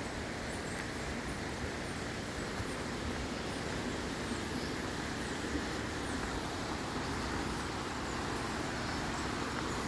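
Waterfall rushing steadily, an unbroken noise of falling water.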